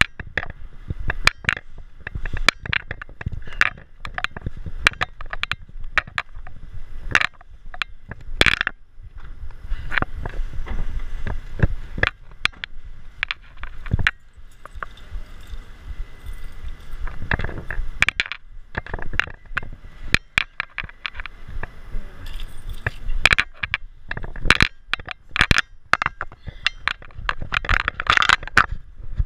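Irregular rattling, clicking and scraping from a moving camera rig jostled as it rolls over concrete pavement, over a low rumble of wind on the microphone. Clusters of sharp knocks come around 8 to 9 seconds in and again near the end.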